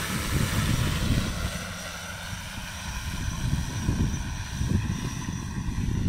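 Six-rotor agricultural sprayer drone's propellers humming steadily in flight as it flies away, under an uneven, gusting low rumble.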